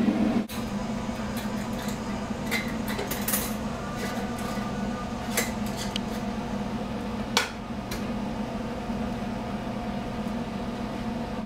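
Scattered clinks and knocks of metal pots, utensils and glass canning jars being handled while jars are filled with sauce, the loudest about seven seconds in, over a steady hum.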